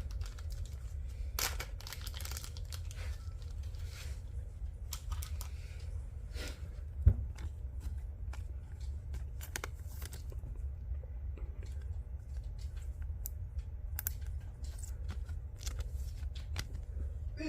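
Plastic card sleeves and trading cards being handled: intermittent crinkling, tearing and rustling of plastic, with a single sharp knock about seven seconds in. A steady low hum runs underneath.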